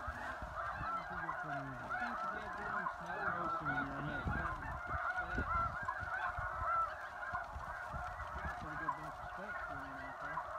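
Dense, continuous chorus of many snow geese calling at once, a tangle of overlapping honks with no break.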